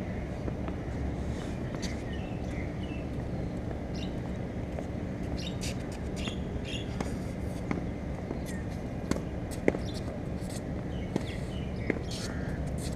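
Small birds chirping over a steady low background noise, with a few sharp knocks of a tennis ball off racket, wall and court in the second half.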